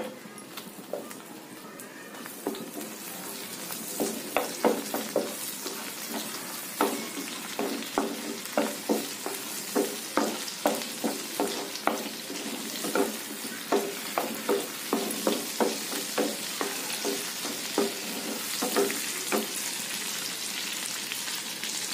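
Bay leaf, cinnamon, black cardamom, cloves and chopped green chili sizzling in melted butter in a frying pan, while a spatula stirs them with repeated knocks and scrapes against the pan. The sizzle grows louder toward the end.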